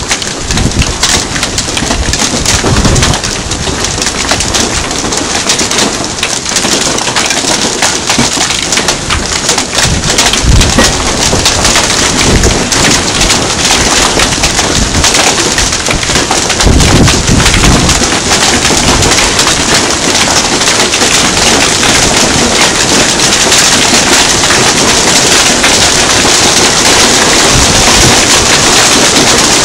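Hail pelting a wooden deck and the ground around it: a dense, loud rattle of countless small impacts that grows a little louder toward the end, with a few brief low rumbles along the way.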